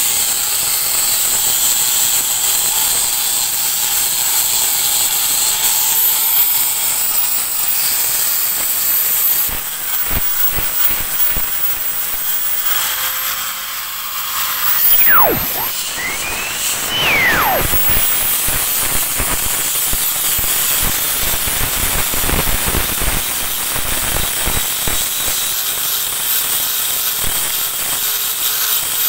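Angle grinder fitted with an 80-grit flap disc sanding rough, damaged wood, a steady high-pitched hissing whine. About halfway through, the pitch drops away and then rises again.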